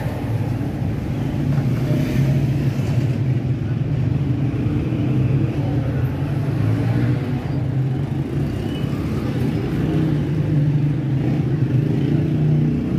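Street traffic: a steady low rumble of motor vehicle engines running.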